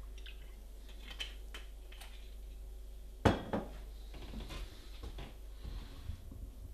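Light clinks of an olive oil bottle against a saucepan, then one sharp knock about three seconds in, followed by a smaller one, as the bottle is set down, and a few light ticks after.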